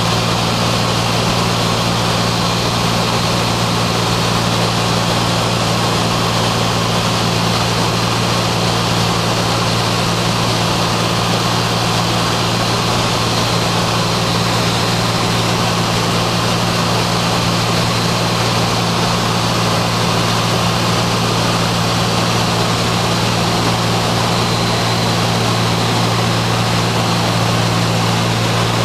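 Light propeller plane's engine and propeller running steadily in cruise flight, heard from inside the cabin as an even low hum over a constant rush of air.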